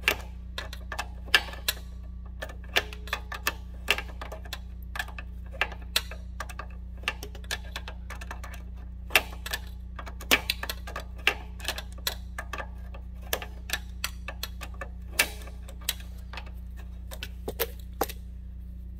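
Irregular sharp metallic clicks, roughly two a second, as channel-lock pliers grip and work a threaded part on a motorcycle's rear wheel hub, over a steady low hum.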